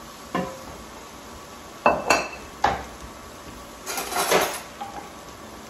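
Kitchen dishes and utensils clattering: a few sharp knocks and clinks in the first three seconds, one with a brief ringing note, then a longer rattle of dishes about four seconds in.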